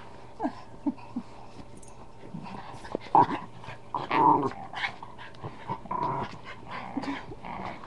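A dog making a series of short vocal sounds, some brief and some longer, loudest about three and four seconds in, with light clicks in between.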